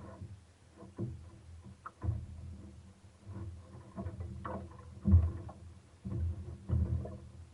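Irregular knocks and thumps, roughly one a second, with a low rumble between them; the loudest comes about five seconds in.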